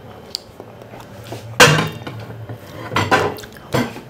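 A metal saucepan set down with a loud clang about one and a half seconds in, followed by a few lighter clatters of cookware.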